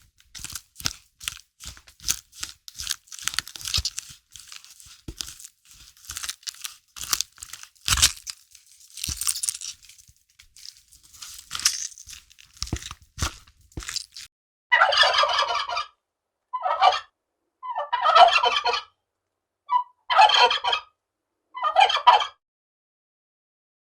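A fowl gives a series of about five rattling, gobble-like calls in the second half, each lasting half a second to a second. Before them come scattered clicks and crackles.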